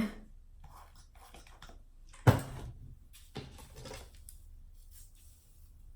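Handling noises: a sharp knock about two seconds in, like an object set down on a hard surface, then a few softer knocks and faint rustling.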